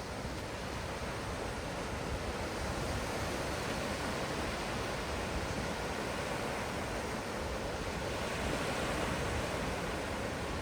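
Ocean surf washing steadily, as a continuous rushing noise that swells slightly a few seconds in and again near the end.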